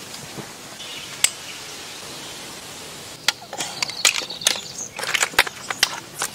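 Sharp, irregular clicks and cracks of freshwater snail shells being handled while a twig pries the meat out of them. A single click comes about a second in, and a rapid scatter of clicks starts about three seconds in.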